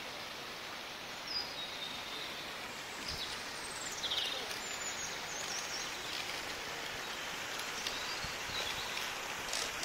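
Steady outdoor hiss with a few short, high-pitched bird chirps scattered through it, one a quick falling series of notes a few seconds in.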